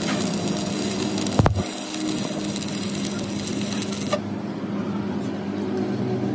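Steady workshop machine hum with a single sharp knock about a second and a half in and a lighter click near four seconds.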